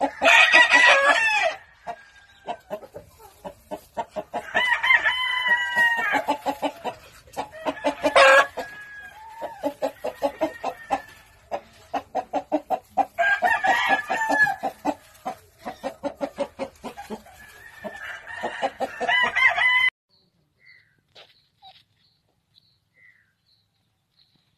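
Chickens calling: a rooster crowing about five times, with rapid runs of clucking, several pulses a second, between the crows. The sound cuts off suddenly about 20 seconds in, leaving only faint bird chirps.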